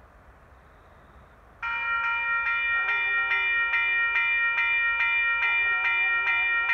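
Railway level crossing warning bell starting suddenly about a second and a half in and ringing rapidly, about two strokes a second: the crossing alarm activated for an approaching train.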